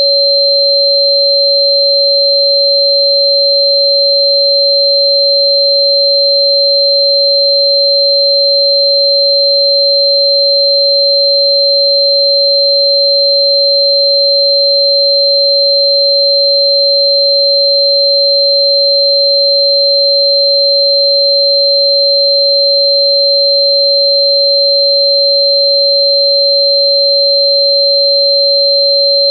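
Two steady electronic sine tones held without change: a mid-pitched tone matching the 559.041 Hz 'frequency' listed for Chuan Bei Mu (Sichuan fritillary bulb), over a much higher second tone.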